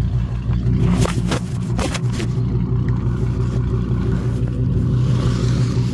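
Ford Excursion's engine idling steadily, with a few sharp knocks and clatter about one and two seconds in.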